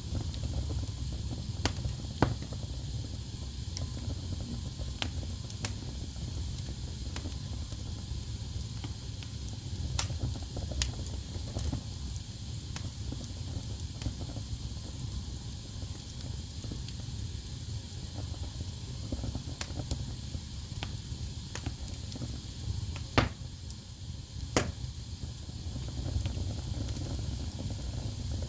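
Wood fire burning in a fireplace: a steady low rumble and hiss with scattered crackles and pops, a few sharper snaps standing out.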